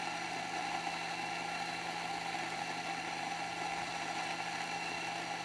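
Ceado E6P electronic espresso grinder running steadily, its motor and burrs grinding a timed double dose of coffee into a portafilter.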